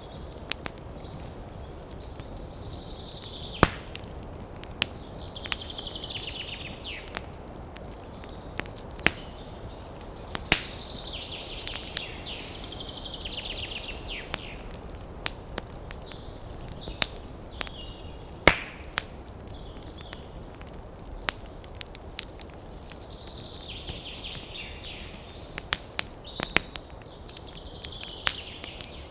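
Campfire crackling, with irregular sharp pops and snaps over a steady low rush. Short bursts of rapid, high trilling calls come and go several times.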